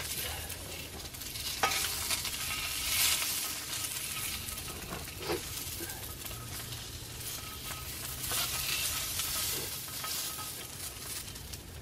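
Lamb sausages sizzling in a frying pan over an open wood fire, with a few sharp clicks of a metal spatula against the pan as they are turned.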